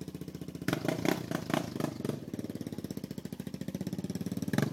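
Quad bike engine idling with a steady, fast pulsing beat, with louder, rougher bursts of engine noise about a second in and again near the end.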